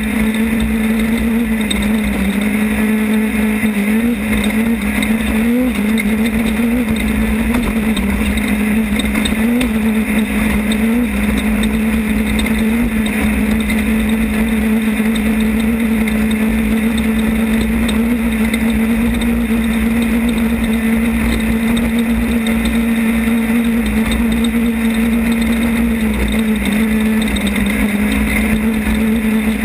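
Off-road race car's engine running steadily at high revs, heard from an in-car camera, with a dense rumble and rattle of noise beneath it. The engine pitch wobbles up and down a little several times in the first ten seconds or so and again near the end.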